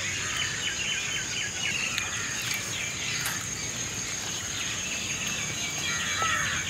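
Rural outdoor ambience: a steady high insect drone with birds chirping over it in short repeated calls, which grow busier near the end.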